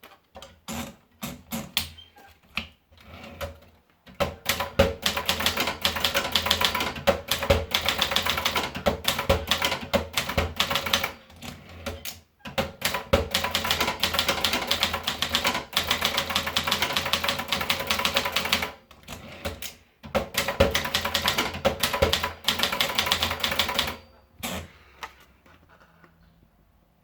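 Brother De Luxe typewriter being typed on. A few separate keystrokes come first, then long runs of rapid key strikes with short pauses between them, stopping about 25 seconds in.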